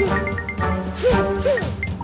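Cartoon background music, with short sound effects that swoop up and back down in pitch twice about a second in.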